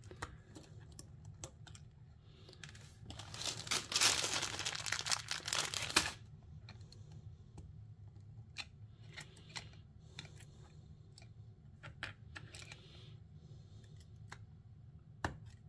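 Small LEGO plastic pieces clicking and tapping together as brown candlestick trunk pieces and leafy branch sections are pressed onto a brick-built tree. About three seconds in, a louder crinkling rustle runs for roughly three seconds.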